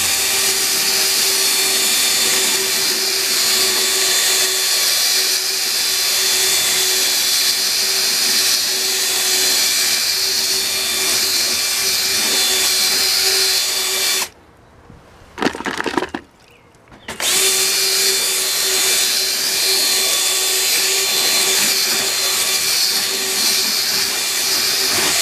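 DeWalt cordless drill spinning a drill-brush scrubber against a wet plastic tabletop: a steady motor whine with bristles scrubbing. About halfway through it stops, gives one short blip, and starts again a couple of seconds later for the rest.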